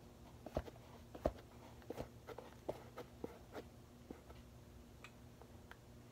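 Bare foot slipping into a worn Adidas Gazelle indoor soccer shoe: faint, irregular taps, scuffs and creaks of the shoe and its sole against a hard floor, thinning out after about four seconds. A faint steady hum underneath.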